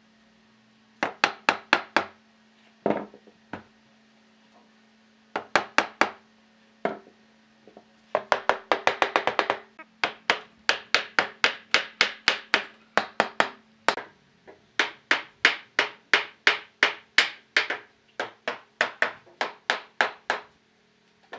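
Hammer blows driving glued tenons home into the mortises of a solid-wood table frame: sharp wooden knocks in short quick runs, a very fast flurry just past the middle, then an even run of about two blows a second.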